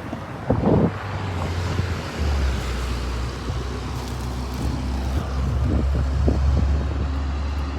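Road traffic: cars driving past with a steady low rumble that swells as a vehicle goes by about six seconds in. A brief bump comes about half a second in.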